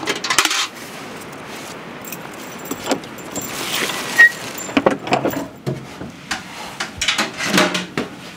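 A metal clatter at the start as metal buckets are set down, then a key rattling in a padlock, with a sharp click as the lock comes open about four seconds in. A wooden plank door is then pulled open with a run of knocks and scrapes.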